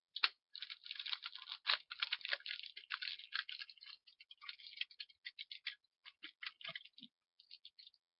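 Bubblegum being chewed close to the microphone: a dense run of crackly, clicking mouth sounds that thins into shorter bursts with brief gaps in the second half.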